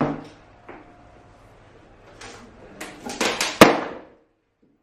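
Hard knocks and clatter from handling a cork flooring plank at a laminate cutter: one knock at the start, then a quick run of clattering knocks a few seconds in, ending in one sharp loud knock.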